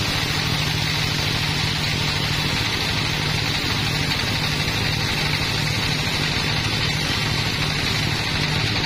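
Large band sawmill running steadily as its blade cuts lengthwise through a slab of teak, a constant motor hum under the hiss of the cut.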